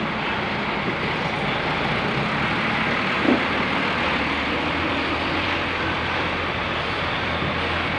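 Diesel coach buses running and pulling out in a convoy: a steady engine and road noise close by, with one short, sharp sound about three seconds in.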